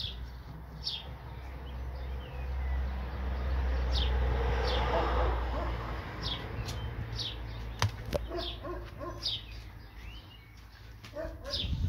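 Barn swallows calling: a series of short, high chirps that slide downward, repeating about every half-second. A low rushing noise swells and fades in the middle, with a sharp click about eight seconds in.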